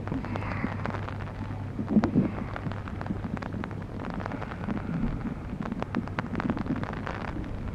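Wind gusting on the microphone over floodwater sloshing, with many small splashes and drips and a steady low hum underneath; the strongest gust comes about two seconds in.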